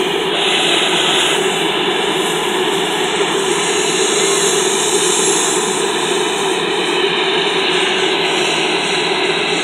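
Sikorsky S-92A helicopter running on the ground, its twin turboshaft engines and turning rotors making a loud, steady, even rush of sound.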